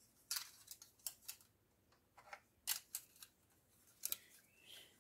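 Irregular light clicks and taps of small plastic Rubik's cube display stands and puzzle cubes being handled and set down on a wooden shelf.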